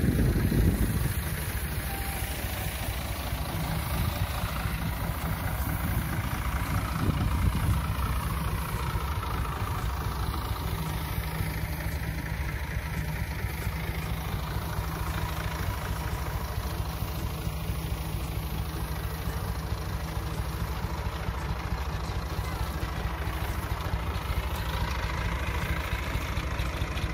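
Tractor engine running steadily at a fixed speed, powering the mounted crop sprayer's pump.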